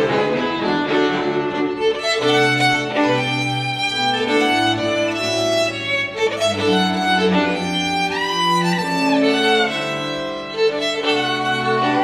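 Solo violin and string quartet (two violins, viola and cello) playing together: long held low cello notes under the violin melody, which slides upward about eight seconds in.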